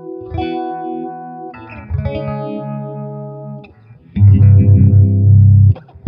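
Electric guitar strumming chords through the Mattoverse Just A Phase phaser pedal, the chords swept by the phase effect. About four seconds in, a much louder, deeper chord comes in and is cut off sharply just before the end.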